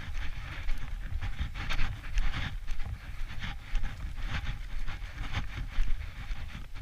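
Footsteps swishing through grass at a walking pace, with a German Shorthaired Pointer puppy panting and wind rumbling on the microphone.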